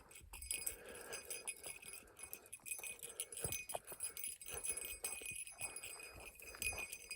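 A small bell jingling continuously, with irregular footfalls on dirt underneath it.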